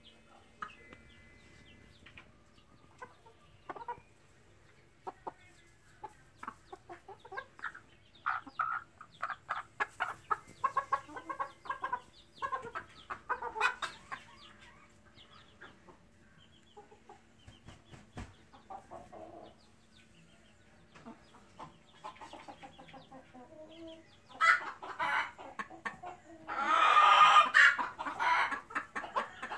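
Silkie chickens clucking: a quiet start, then a run of short clucks in the middle, and a louder, longer call near the end.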